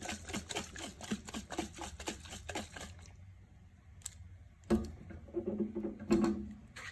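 Glass mason jar being handled, with a quick run of small clicks and taps, then its metal screw lid being twisted open with a scraping grind of the threads near the end.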